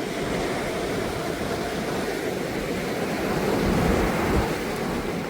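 Strong wind buffeting the microphone over the wash of surf, a steady noise that swells louder between about three and a half and four and a half seconds in.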